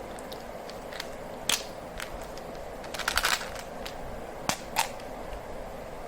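Candy wrappers crackling and snapping as they are handled and torn open. There are a few single sharp snaps, a quick cluster about three seconds in, and two more about a second later, over a faint steady hum.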